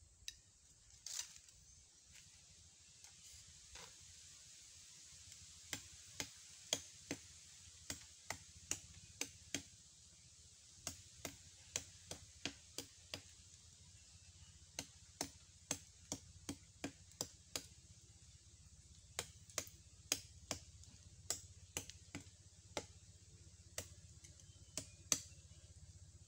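A knife chopping at a hollow plant stem held against a coconut trunk: sharp, short chops in quick runs of several strokes, with short pauses between the runs.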